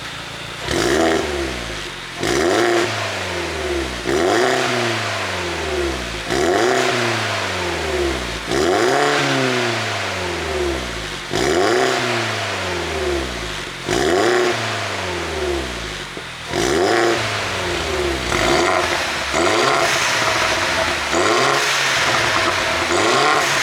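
BMW R56 Mini Cooper S 1.6-litre turbocharged four-cylinder blipped again and again, each rev dropping back with popping and crackling from a pop-tuned exhaust on the overrun. There are about eight separate blips, then quicker ones near the end.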